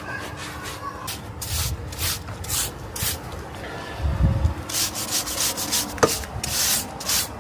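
A stiff brush sweeping a hard balcony floor in short, uneven strokes, roughly two a second, brushing up pigeon droppings. There is a low thump about four seconds in.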